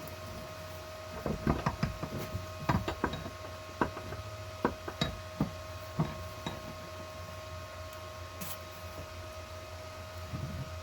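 A run of sharp clinks and knocks, metal parts and tools handled on a workbench, over a steady electrical hum; they come thickest in the first half and die away after about six and a half seconds.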